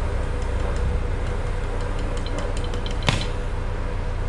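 Stick welding on a welding inverter, the electrode being touched to the steel to strike an arc: scattered short ticks and crackles and one sharper crack about three seconds in, over a steady hum. The arc does not hold and the electrode sticks to the work, which the welders take for too little current.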